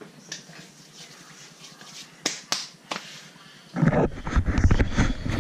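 A few sharp clicks, two of them close together just after two seconds in. Then, from near the end, loud rustling, bumping and rumbling as the camera is picked up and carried.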